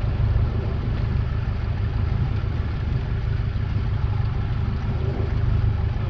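Fishing boat's engine idling, a steady low drone with an even pulse.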